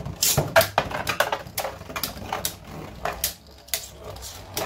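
Viper Hydrax and Right Artemis Beyblade Burst tops spinning in a plastic stadium. They give a run of sharp, irregular clacks, several a second, as they strike each other and the stadium.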